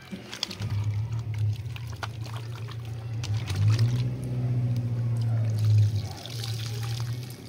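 Water pouring and splashing in a metal pot as tomatoes are washed by hand, with the water tipped out of the pot near the end. A steady low hum runs underneath.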